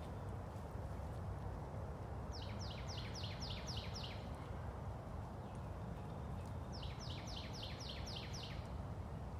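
A songbird singing two runs of quick down-slurred notes, about seven notes at roughly four a second in each run, a few seconds apart, over steady low outdoor background noise.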